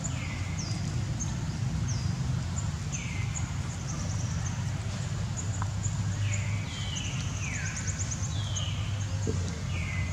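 Animal calls, short high calls that each fall in pitch, repeated every second or two, with faint higher chirps and a quick ticking run about two-thirds of the way through, over a steady low rumble.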